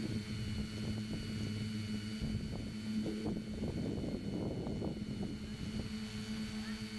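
Multirotor drone in flight: the tricopter's three brushless motors (RCMC 2212 with 10x5 propellers) humming steadily, heard from the camera on board. Wind rushes over the microphone through the middle few seconds.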